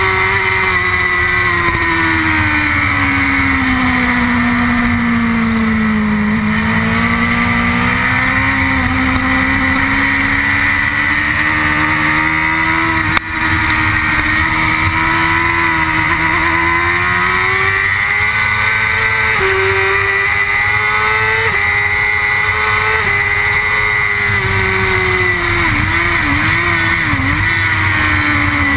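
BMW S1000RR superbike's inline-four engine at racing speed, heard from the onboard camera: the engine note sinks slowly over the first few seconds through a long corner, climbs back, and changes pitch in a few quick steps later on as gears are shifted. A short knock about 13 seconds in.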